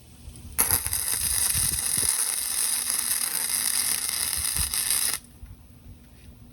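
Electric welding arc burning for about four and a half seconds as a tack weld is laid, a steady dense crackling hiss that starts and stops abruptly.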